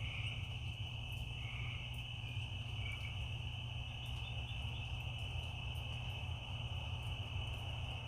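Night chorus of crickets and frogs: a steady high-pitched insect trill, with a few short calls below it in the first few seconds, over a steady low rumble.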